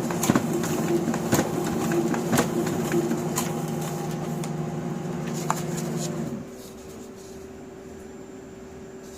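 Kyocera P3260dn laser printer running with a sharp knock about once a second, the symptom of its fuser drive gear missing a tooth. About six seconds in the drive winds down with a falling whine and stops. After that only a steady fan hum remains.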